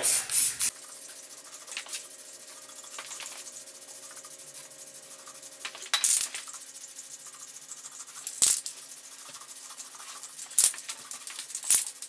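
Aerosol spray-paint can hissing as white paint goes onto a cone: a spray that stops under a second in, then a few brief spurts and sharp clicks, over a faint steady hum.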